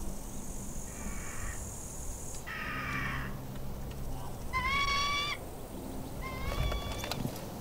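Crow cawing: four drawn-out calls spaced a second or two apart, over a low steady hum, with a high hiss in the first couple of seconds.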